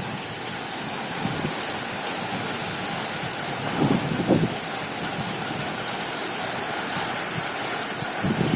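Heavy rain falling steadily in a storm, with strong wind gusts buffeting the microphone. The gusts come in low surges, the biggest about four seconds in.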